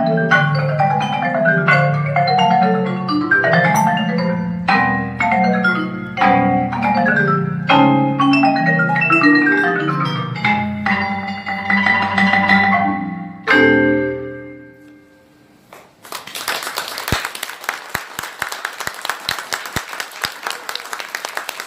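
Marimba and vibraphone duo playing a tango, closing on a final struck chord that rings out and dies away. About two seconds later the audience breaks into applause.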